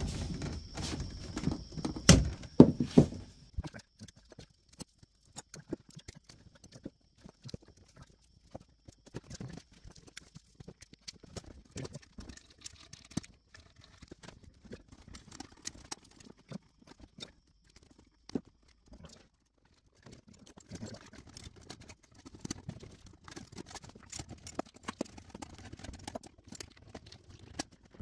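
Cable cutters snipping through the RV's incoming shore power cable: a few sharp snaps about two to three seconds in. Then quiet clicks and rustles of the cut wires being handled.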